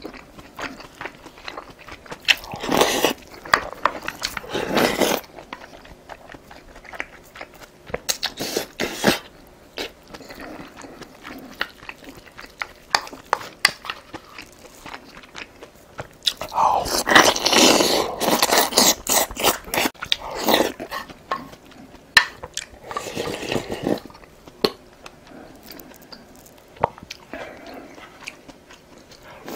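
Close-miked chewing and crunching of food, irregular and clicky, with louder bouts around a few seconds in and again past the middle.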